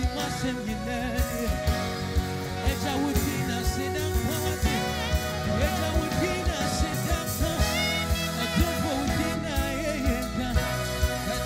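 Live band music with keyboard, drum kit and electric guitar playing a gospel song to a steady drum beat.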